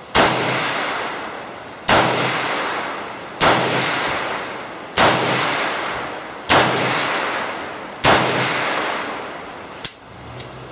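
Dan Wesson .357 Magnum revolver fired six times at an even pace, about one and a half seconds apart, each shot followed by a long rolling echo. A sharp click comes shortly after the last shot.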